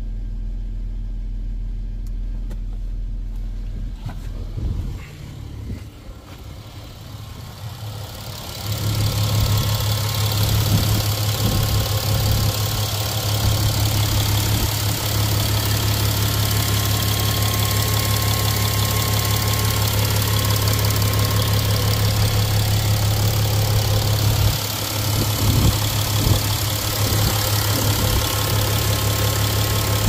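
2011 VW Touareg diesel engine idling after a troublesome start. It is a steady low hum at first, then, from about eight seconds in, loud and steady right at the open engine bay, with a brief dip near the end. The owner calls the running kind of chuggy, and a glow plug warning light has come on with it.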